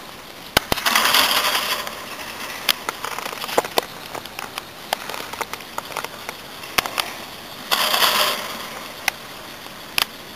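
Drag lift running past a tower: scattered sharp clicks, with two hissing bursts of about a second each, one near the start and one about eight seconds in.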